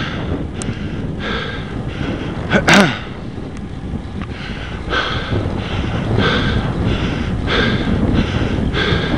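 A cyclist breathing hard and fast while climbing, trying to get his breath back: rhythmic, audible breaths about every two-thirds of a second, with one short, loud noisy breath about three seconds in. Wind and road rumble run underneath.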